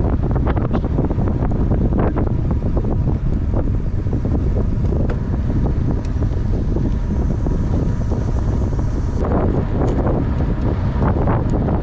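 Wind buffeting the microphone of a camera riding on a road bicycle moving at speed: a steady, loud low rumble.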